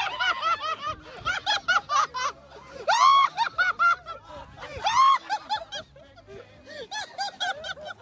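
A group of young men yelling, whooping and laughing in rapid, high-pitched, overlapping shrieks. Two louder shrieks come about three and five seconds in.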